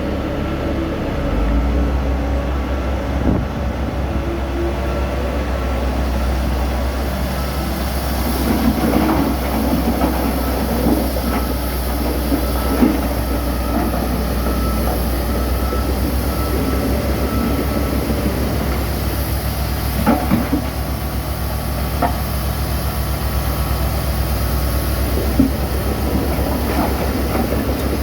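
Heavy diesel machinery running with a steady low rumble, with scattered metallic clanks and knocks.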